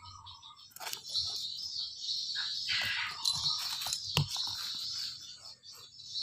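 Kittens tussling in play, with scuffling and rustling and one sharp knock about four seconds in; birds chirp in the background.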